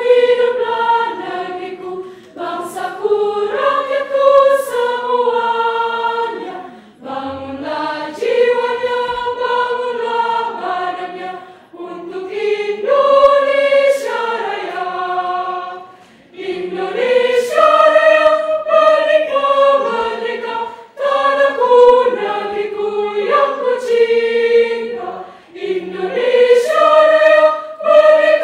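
Children's choir singing in several parts, in phrases of about four to five seconds with short breaks between them.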